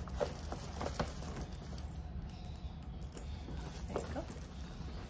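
A leather handbag and its strap being handled: soft rustles and a few light taps and knocks.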